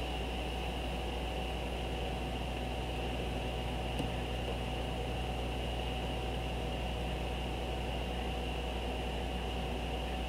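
Steady hum and hiss of a running computer picked up by the microphone, with one faint click about four seconds in.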